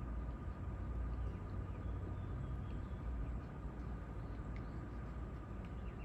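Outdoor background: a steady low rumble with a thin steady whine above it and a few faint, short bird chirps.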